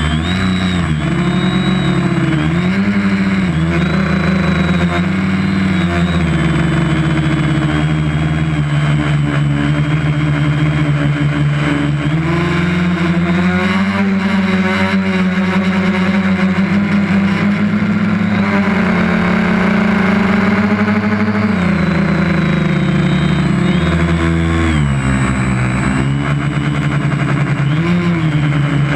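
Quadcopter's electric motors and propellers buzzing in flight, heard on board the craft, the pitch rising and falling again and again as the throttle changes, with a steady high whine above.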